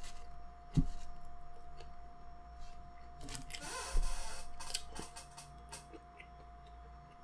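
Small eating and handling sounds: a couple of soft knocks and clicks, and a short crackly rustle a little past the middle as a piece of KFC food, likely a biscuit, is pulled apart by hand. A faint steady whine sits underneath.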